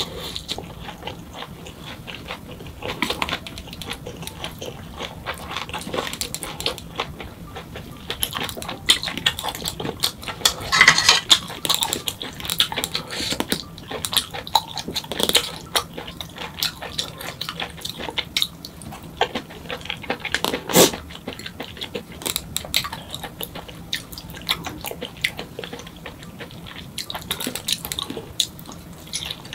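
Close-miked eating sounds: chewing and mouth noises, with chopsticks and a spoon clicking irregularly against bowls and plates, and a longer noisy spell about ten seconds in.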